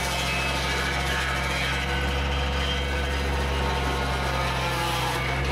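Compact tractor's diesel engine running steadily, powering a Baumalight tree saw whose spinning blade grinds a stump down at ground level. The sound is even throughout, a low engine drone under a hissing, rasping cutting noise.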